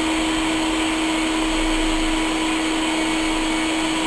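Electric air pump of an EZ Bed air mattress running steadily, a constant hum with a blowing hiss, as it inflates the mattress.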